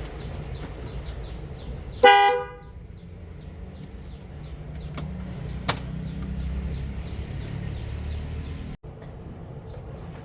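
A car horn gives one short toot about two seconds in, over a low steady rumble. A single sharp click follows a few seconds later.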